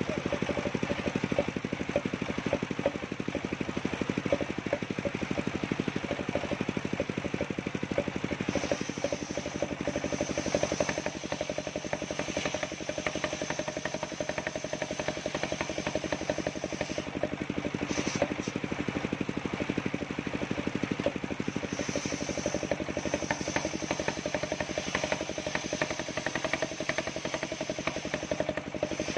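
Engine of a portable circular-saw sawmill running steadily with a fast, even firing beat. A higher hiss rises over it at times, fading and returning several times.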